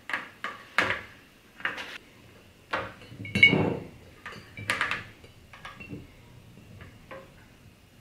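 Clear plastic siphon tubing clinking and knocking against a glass gallon jug and the bucket while a wine siphon is set up by hand: a string of sharp, separate clinks and taps, the loudest and fullest about three and a half seconds in, fainter ones toward the end.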